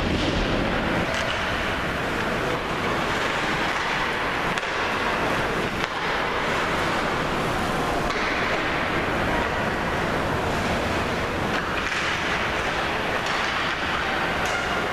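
Ice hockey game sounds in an arena: a steady noisy hiss of the rink's ambience and skates on the ice, with a few brief clacks of sticks and puck.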